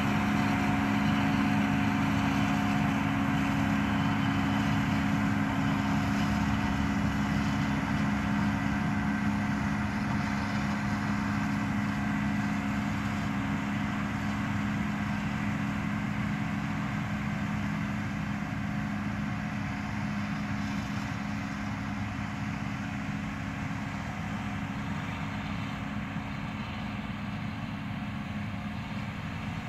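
Engine of a self-propelled windrower running steadily under load as it mows guinea grass, a constant low hum that fades gradually as the machine moves away.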